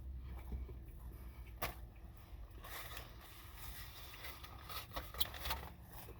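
Quiet eating sounds: chewing with a few sharp clicks and scrapes from handling the food and its container.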